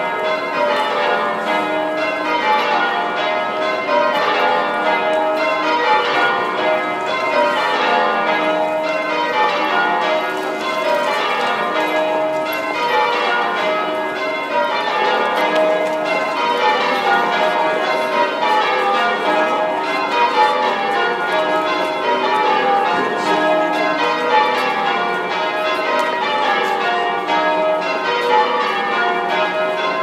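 Change ringing on a ring of eight church bells in a cathedral bell tower: the bells strike one after another without a break, their order shifting from row to row.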